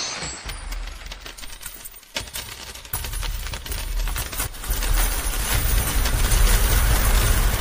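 Sound effect of a heap of metal coins pouring and clinking densely. About three seconds in, a deep rumble starts under the clinking, swells, then fades near the end.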